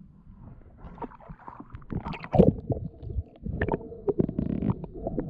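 Water splashing and gurgling around a camera at and just below the lake surface as a spearfisherman handles his catch and speargun. The sound comes in irregular strokes, with the loudest splash about two and a half seconds in.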